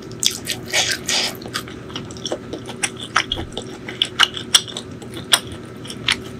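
Close-miked mouth sounds of a person chewing a mouthful of food with lips closed: irregular wet clicks and smacks, with a longer squishy stretch about a second in.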